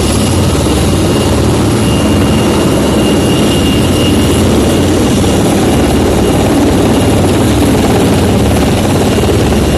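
Rescue helicopter running close by, loud and steady rotor noise with a constant high whine over it.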